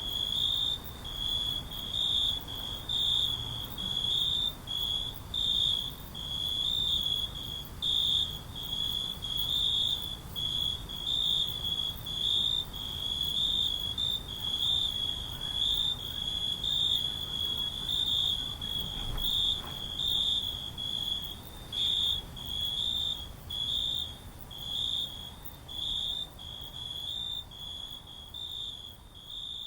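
Crickets chirping: a high, thin trill repeated in short, evenly spaced pulses, steady throughout.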